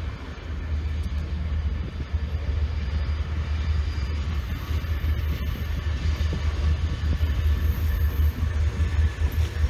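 Freight train hauled by three EF class electric locomotives approaching, a steady low rumble that grows gradually louder as it nears.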